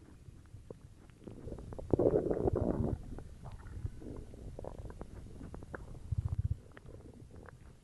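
Human stomach growling and gurgling with carbonated cola in it: a loud gurgle about two seconds in lasting about a second, a low fluttering rumble near the end, and small pops and bubbles throughout.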